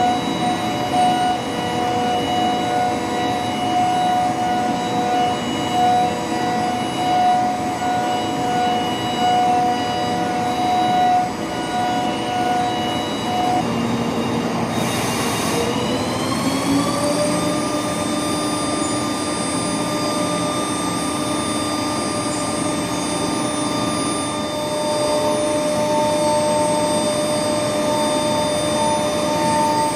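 Mazak CNC machine tool running under cut: a steady spindle whine with cutting noise and a regularly pulsing tone. About halfway through there is a brief hiss, and the whine glides up to a higher pitch and holds there, as the spindle changes speed.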